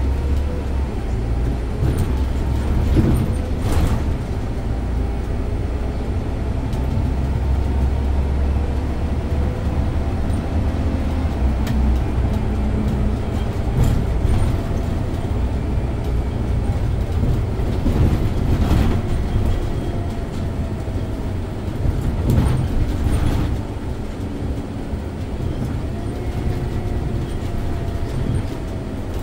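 Scania OmniLink city bus heard from the driver's seat while under way: a steady heavy low rumble of engine and road, with a drivetrain note that slides slowly up and down in pitch as the bus speeds up and slows. A few short knocks and rattles come from the bus body, the loudest about 4, 14, 19 and 22 seconds in.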